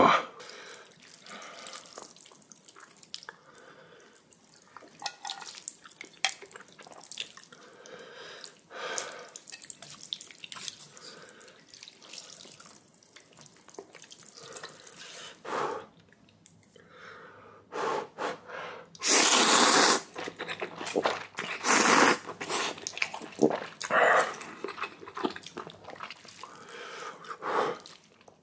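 Close-miked eating of spicy ramen noodles: wet chewing and smacking clicks, with a loud slurp of noodles lasting over a second about two-thirds of the way through and a shorter slurp soon after.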